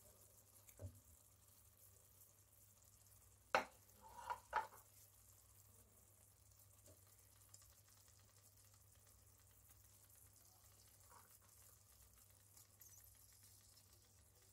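Near silence with a faint steady hiss as tomato sauce simmers in a clay tagine and sardine meatballs are laid into it by hand. About three and a half seconds in comes one sharp knock, then two softer knocks close after it.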